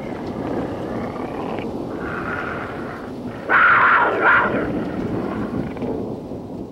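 A logo sound effect: a steady rumbling roar with two louder flares about three and a half and four and a quarter seconds in, fading away at the end.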